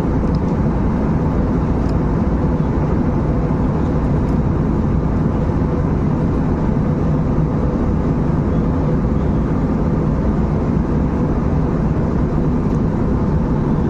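Passenger airliner in flight heard from inside the cabin: steady engine and airflow noise with a constant low rumble.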